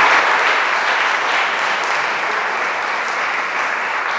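Audience applauding, a dense steady clapping that slowly fades.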